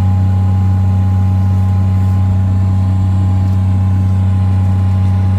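A loud, steady low machine hum that holds one unchanging pitch, with a few fainter fixed higher tones above it.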